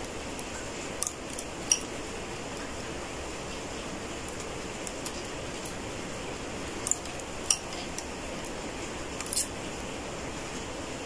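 Metal transfer tool clicking against the latch needles of a knitting machine as stitches are lifted and moved onto neighbouring needles for lace holes: a few sharp ticks, mostly in pairs about half a second apart, over a steady background hiss.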